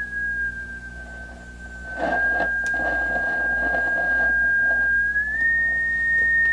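Beat-note whistle from a Vectronics 40 m direct-conversion receiver kit, tuned to a signal generator during alignment: one steady tone that sags slightly in pitch and steps back up near the end. From about two seconds in, a scratchy rushing noise comes up under it for about three seconds as the dirty trimmer capacitor is worked back and forth.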